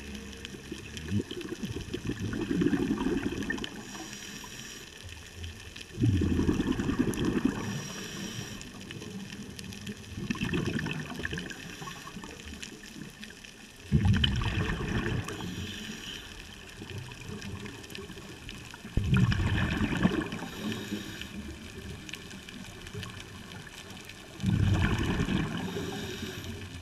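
A scuba diver breathing through a regulator, heard underwater: a burst of exhaled bubbles gurgling up about every four to five seconds, each starting suddenly and fading, with quieter stretches between breaths.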